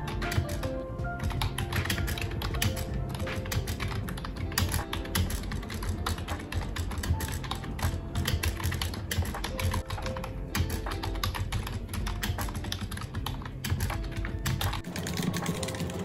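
Fast typing on a Kakao Friends figure keyboard: a dense run of light key clicks, with a springy spacebar sound. Background music plays under it.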